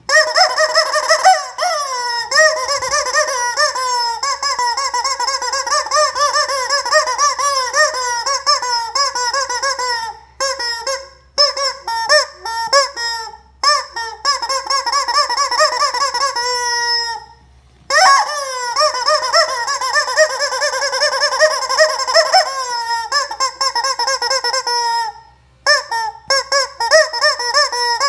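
Yellow rubber screaming-chicken toy squeezed over and over, giving loud honking squawks in quick succession, in long runs broken by a few short pauses.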